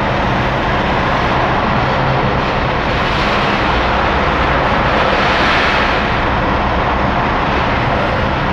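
BMW E36 M3 straight-six running through its newly installed aftermarket exhaust, heard from inside the car while driving slowly: a steady exhaust drone that swells slightly midway.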